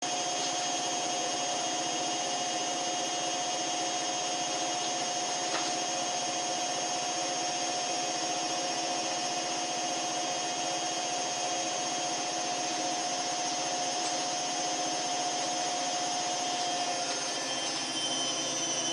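Washing machine running: a steady whirring with a rubbing, churning noise and a steady whine that drops out about seventeen seconds in.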